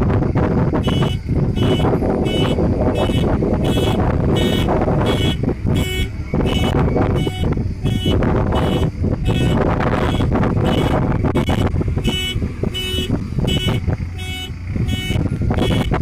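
JCB backhoe loader reversing: its reverse alarm beeps about twice a second, starting about a second in, over the steady running of its diesel engine.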